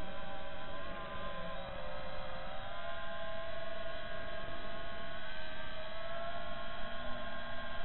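FPV quadcopter's brushless motors and propellers whining steadily in flight, picked up by the drone's own onboard microphone over a low rush of wind. The pitch dips slightly about a second and a half in, then rises a little and holds.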